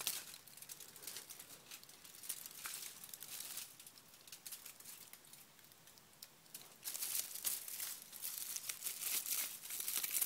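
Thin metal foil and plastic film layers of a torn-open high-voltage capacitor crinkling as they are handled and unrolled, in scattered faint crackles that grow denser and louder from about seven seconds in.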